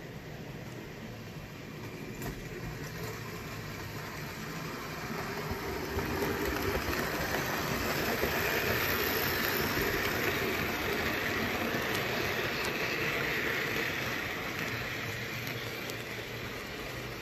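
Märklin H0 model train, a BR 78 steam tank locomotive hauling freight wagons, running on metal track: a steady rolling rattle of wheels and the locomotive's motor that grows louder as the train passes close, peaks in the middle, then eases off.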